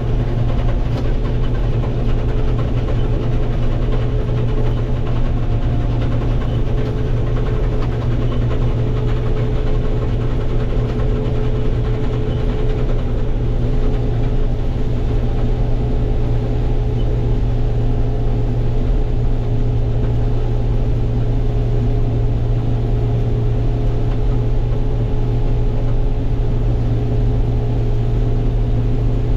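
Case IH 1666 combine running steadily with its separator engaged while cutting soybeans, heard from inside the cab as a constant engine and machine drone.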